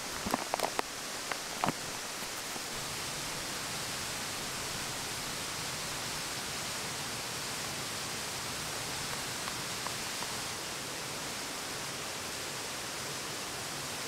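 Steady rushing of water from a nearby stream and waterfall. In the first two seconds a few sharp clicks and crinkles come from a foil coffee bag and a metal pot being handled.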